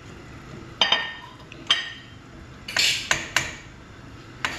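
Cooking utensils knocking against a steel pan of curry as it is stirred: about seven sharp, ringing clinks at uneven intervals, with a quiet stretch in between.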